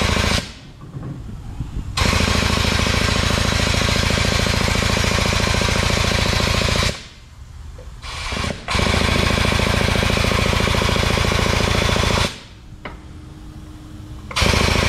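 Hydraulic pump of a shop press running in bursts with an even rapid pulse as the ram bears down on a driveshaft stub to press it out of its carrier bearing. It runs briefly at the start, then for about five seconds, stops, runs again for about three and a half seconds, and starts once more near the end.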